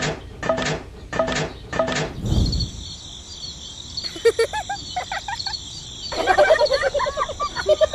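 Poultry calling: short repeated calls about twice a second, then quick warbling calls over a steady high-pitched background, with one low thud a little after two seconds.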